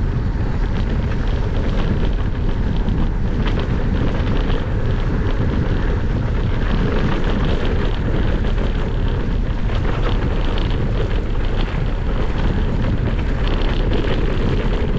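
Wind buffeting the microphone of a camera on a moving electric mountain bike, a steady low rumble, with a stream of small rattles and crunches from the bike and tyres on rough trail.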